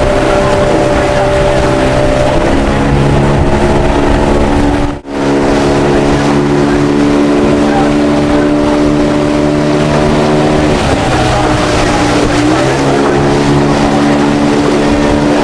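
Motorboat outboard engine running steadily close by, mixed with wind and water noise. The engine's pitch steps down a couple of seconds in, then dips and rises again about eleven seconds in, as the throttle is eased and opened. The sound cuts out briefly about five seconds in.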